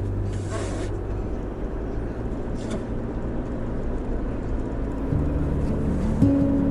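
Camper van driving, with steady engine and road noise and a short whoosh about half a second in. Music with low held notes comes in about five seconds in.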